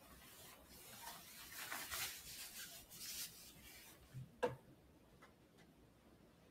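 Faint scratchy rubbing for about two and a half seconds, then two short knocks a little after four seconds in, the second a sharp click.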